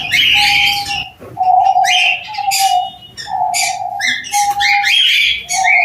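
Doves cooing, a string of short, evenly pitched coos one after another, with small cage birds chirping higher over them.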